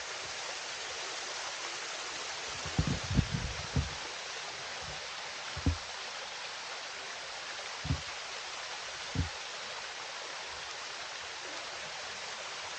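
Steady rush of falling water from a waterfall, with a few short low thumps: a quick cluster about three seconds in, then single ones every couple of seconds.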